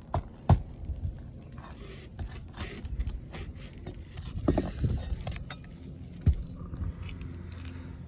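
Roofing nails being pried out from under asphalt shingles: irregular sharp knocks and clicks of metal with scraping, the loudest knocks about half a second in, around four and a half seconds and around six seconds.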